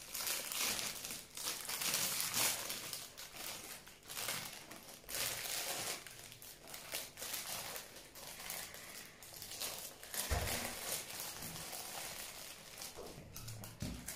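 A thin clear plastic bag crinkling and rustling in irregular bursts as it is pulled off a dancing cactus toy, with a dull bump about ten seconds in.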